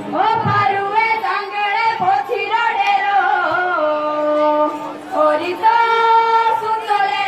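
Girls' voices singing a Himachali Nati folk song in long held notes. The drumming stops at the start, leaving the singing almost unaccompanied.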